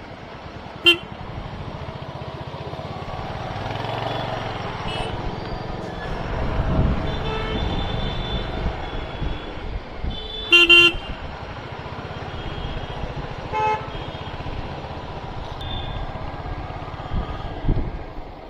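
City traffic heard from a moving motorcycle: a steady engine and road rumble with several short vehicle-horn toots. The loudest is a double toot about ten and a half seconds in.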